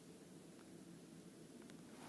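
Near silence, with a faint steady hiss.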